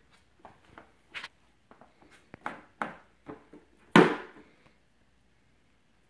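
A dog rummaging with its nose in a plastic toy bucket full of rope and rubber toys: a string of short knocks and rustles, the loudest about four seconds in, then it goes quiet.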